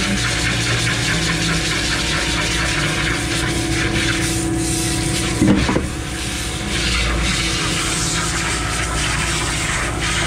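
Water hosed into a concrete pump's S tube and hopper during washout, a steady rushing spray, with the pump truck's engine running steadily beneath it. A brief louder burst about five and a half seconds in.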